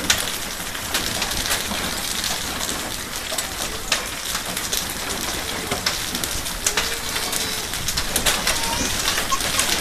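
Hail and heavy rain pelting wet asphalt: a steady rush of rain with many sharp ticks of hailstones striking the ground.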